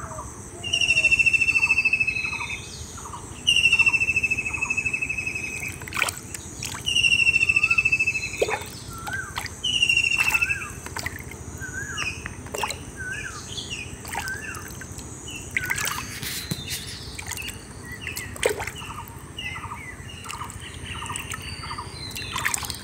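Birds calling: a loud, long trilled note that falls slightly, repeated about every three seconds in the first half, over many short chirps that run on throughout. A few brief splashes and clicks come from wading in shallow muddy water.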